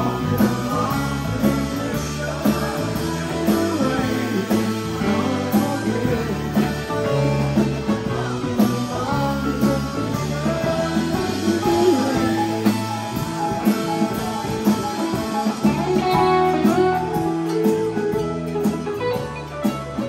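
Live rock band playing: electric guitar lines over electric bass, keyboards, drum kit and congas.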